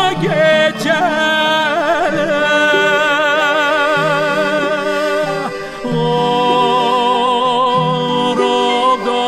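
Recorded folk-song music: a singer's voice holds long, ornamented notes with a wide vibrato over low sustained accompaniment. There is a brief break between phrases just past halfway.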